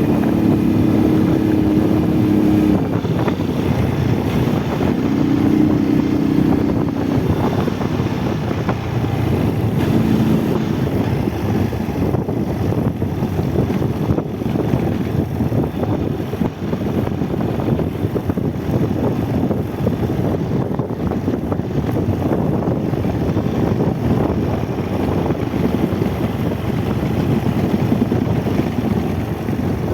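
Motorcycle riding, its engine running under heavy wind rush on the microphone, steady throughout. The engine's note stands out more clearly a few times in the first ten seconds.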